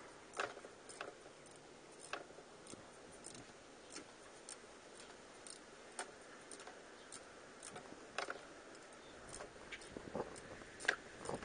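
Ratcheting wrench clicking irregularly as it is swung back and forth on a bolt, about one or two clicks a second, with a few sharper metal clicks near the end.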